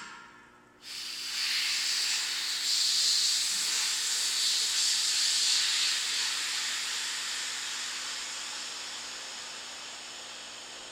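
Compressed air hissing through the valve and lines of a trailer's air-ride suspension as its air-spring bags are filled or let down. The hiss breaks off at the start, comes back abruptly about a second in, is strongest for the next few seconds and then slowly tapers off as the pressure evens out.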